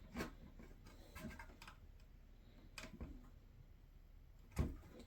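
Light, scattered clicks and taps of 3D-printed plastic parts and a bolt-driving tool being handled, with a louder knock near the end.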